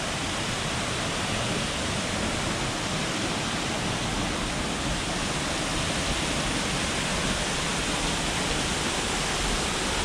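Steady rushing of a small tiered waterfall, water spilling over layered rock ledges.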